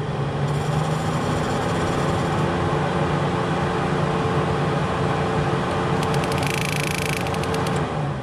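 Steady mechanical hum from a Mitsubishi Evo 8 with the ignition switched on to test its idle control solenoid, with about a second of rapid high ticking around six seconds in. The solenoid makes its normal noises but its plunger does not move.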